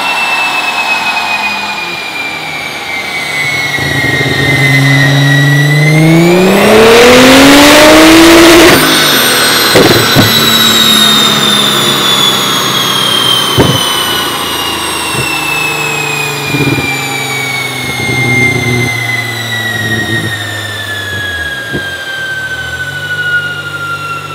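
Nissan GT-R's twin-turbo 3.8-litre V6 making a full-throttle dyno pull: the engine note rises steeply and is cut off sharply about nine seconds in as the throttle closes. A long, slowly falling whine follows as the drivetrain and dyno rollers coast down, with a few sharp pops, and the engine settles to a low idle near the end.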